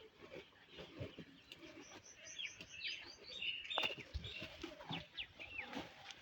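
Buffalo tearing and chewing grass: an irregular run of soft crunching strokes. Small birds chirp in a quick series from about two seconds in until past the middle, with one sharp click among them.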